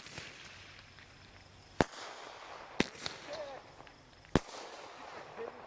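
Aerial fireworks exploding overhead: three sharp bangs, the first about two seconds in, the next a second later and the last about a second and a half after that.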